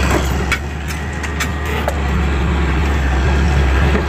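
A truck's diesel engine idling with a steady low drone. Four or so sharp metallic clinks of tools on engine parts come in the first two seconds.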